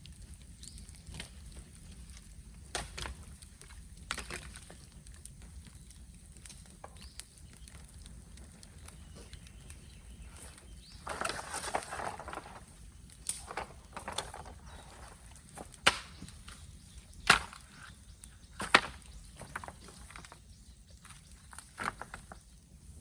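Bamboo burning in a bonfire, crackling with scattered sharp snaps and pops. Partway through, a second or so of rushing hiss; later, three loud pops come about a second and a half apart.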